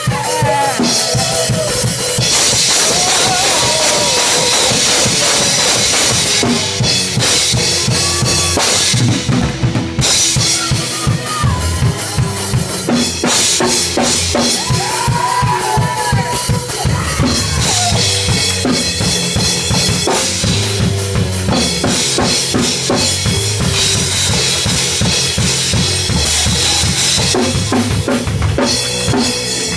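Drum kit played hard and fast, with bass drum, snare and almost constant cymbal crashes, and a keyboard playing along.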